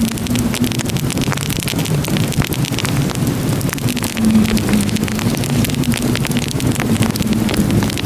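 Crackling wood fire: a dense stream of small pops and snaps over a steady low rumble.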